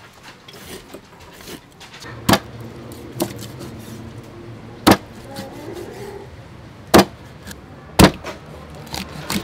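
Cleaver chopping through a fish onto a thick chopping block: four loud chops, about two, five, seven and eight seconds in. Before them, light clicks of a knife scoring the fish against the board.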